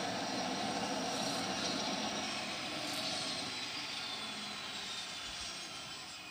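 Twin-engine turboprop (DHC-6 Twin Otter) running as it taxis off the runway after landing. A steady engine drone carries a high whine that glides down in pitch over a few seconds, and the sound fades gradually toward the end.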